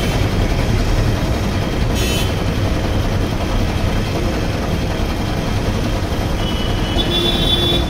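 Belt-driven single-piston air compressor with a 0.5 hp single-phase electric motor running, a loud, steady, fast chugging of the piston. A short high-pitched burst about two seconds in.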